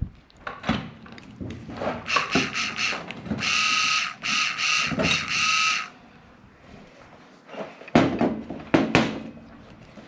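Small electric motor of a 1UZ-FE VVTi drive-by-wire throttle body, powered straight from a battery, whining in three short bursts about halfway through. Clicks and knocks of metal parts being handled come before and after, with a couple of heavier knocks near the end.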